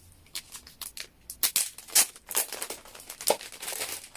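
Plastic wrapping on a CD album being torn open and crinkled by hand, a run of irregular sharp crackles that grows busier about halfway through.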